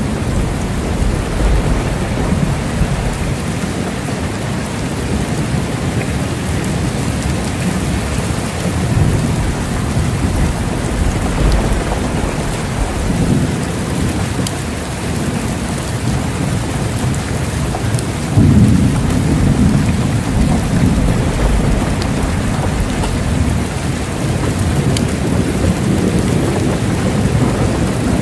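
Steady heavy rain with rolling thunder rumbling underneath, swelling into a louder rumble about two-thirds of the way through.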